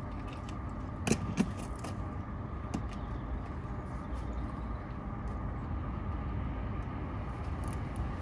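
Steady low rumble of an engine running, with two sharp knocks about a second in.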